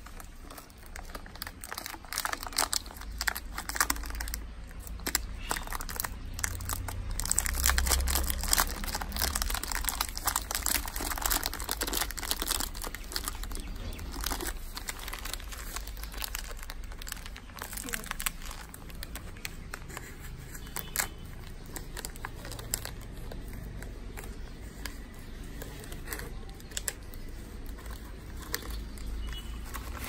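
A cookie packet crinkling and rustling in the hand, shaken to call the dogs with the sound of food. The crinkling is dense and busy through the first half, then thins to scattered rustles.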